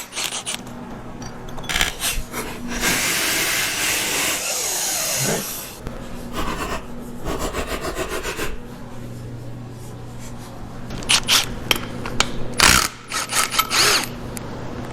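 Hand tools working on an engine as its front-end parts are taken off: metal scraping with a run of clicks and knocks, and a longer stretch of steady scraping noise about three seconds in.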